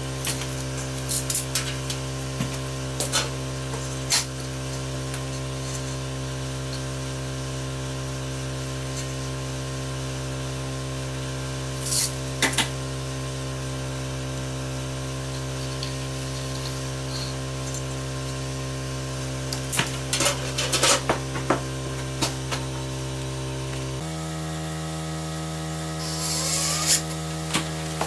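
A steady motor hum running throughout, which shifts to a different pitch about three-quarters of the way through, with scattered clicks, knocks and clatter of hand tools and parts being handled.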